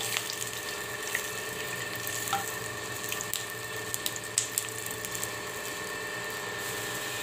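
Chicken pieces shallow-frying in a little oil in a non-stick wok: a steady sizzle with scattered sharp pops.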